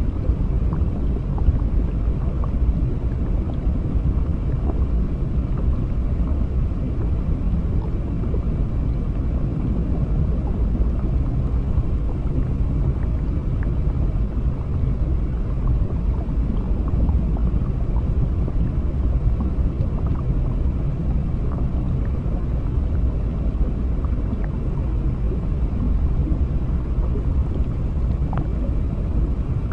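Steady underwater ambience: a deep, muffled rumble of water heard from below the surface, unchanging throughout, with scattered faint small ticks.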